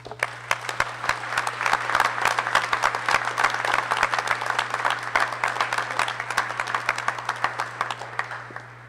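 Audience applauding, starting at once, swelling over the first couple of seconds and dying away near the end.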